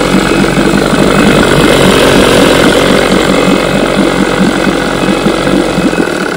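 A 6-horsepower two-stroke outboard motor running steadily in a test tank with a rapid, even firing beat. It runs smoothly on a carburetor that works fine.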